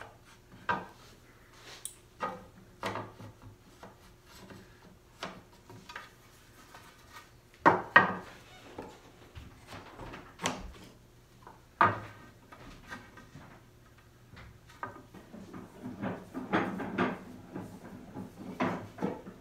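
Woodworking hand tools and a wooden workpiece being handled and knocked on a workbench: scattered knocks and clatters, with two sharper knocks about 8 and 12 seconds in and a busier stretch of rubbing and tapping near the end.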